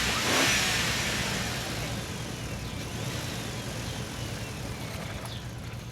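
A motor vehicle passing by, loudest at the start and fading away over a steady low engine hum.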